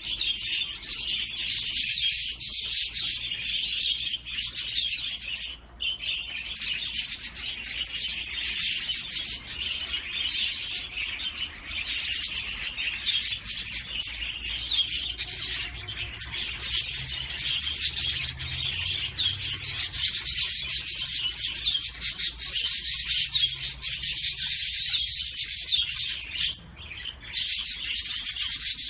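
A group of small cage birds chirping and twittering without pause, many short high calls overlapping.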